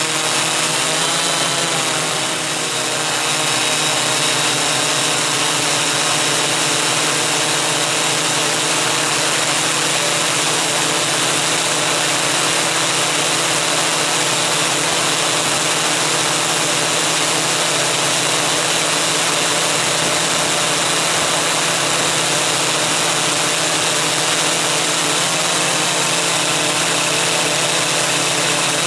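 Electric motors and propellers of a coaxial eight-rotor multicopter (MikroKopter Koax-Quadro X8), heard from on board as a loud, steady hum-whine. Its pitch wavers for the first couple of seconds, then holds steady.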